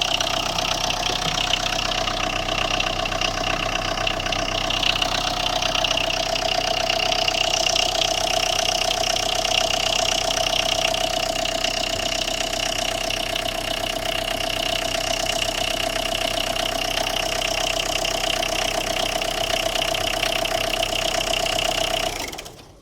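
Tata Indigo diesel engine idling with a knock, which the mechanic puts down to a blown 10-amp ECU module fuse. The engine is switched off near the end and the sound stops abruptly.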